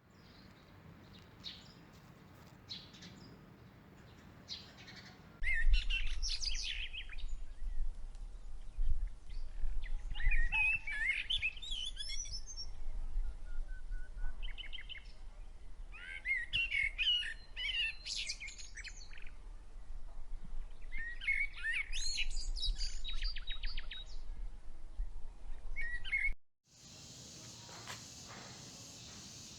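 Songbirds singing in repeated bursts of quick chirps and trills, over a steady low rumble. The song starts about five seconds in and cuts off suddenly near the end, giving way to a steady hiss.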